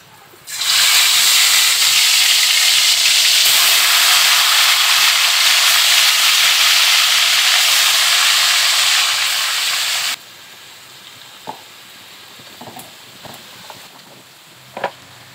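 Potato wedges, then pieces of marinated chicken, frying in hot oil in a pan: a loud, steady sizzle. The sizzle cuts off abruptly about ten seconds in, leaving quiet handling sounds with a few light clicks.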